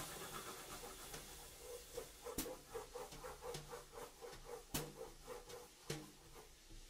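Graphite crayon hatching on A1 paper: a quick run of scratchy strokes, about four a second, with three sharp taps along the way.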